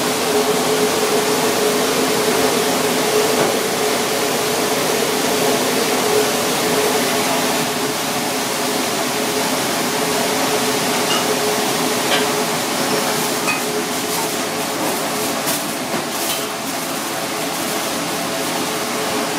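Steady rushing hum of kitchen ventilation and gas burners, with a few light clicks and taps in the second half.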